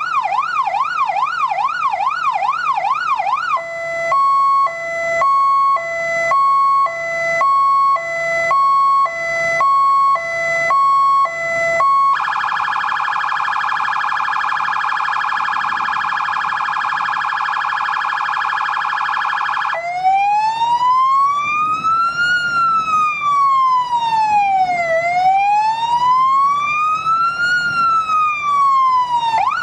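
Fire engine's electronic siren cycling through its tones. It starts with a fast yelp, then goes to a high-low two-tone pattern, then holds a very rapid warble for about eight seconds, and ends on a slow wail that rises and falls twice.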